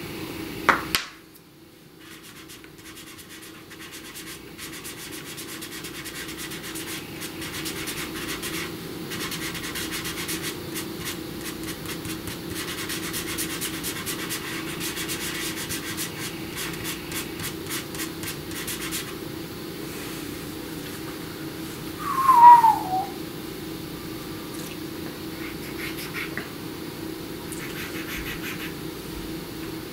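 Soft pastel worked on paper: quick scratchy strokes of a pastel stick and fingertip rubbing to blend it in. About two-thirds through, a short falling squeak-like tone lasting about a second is the loudest sound.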